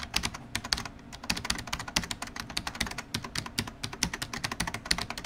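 Rapid, irregular clicking, several clicks a second, that starts suddenly and cuts off abruptly.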